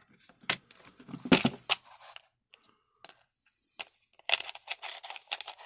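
Hard plastic case of a DeWalt screwdriver bit set being handled and opened: sharp plastic clicks and knocks with some rustling. The sounds come in two bursts, one about a second in and another from about four seconds in, with a short lull between.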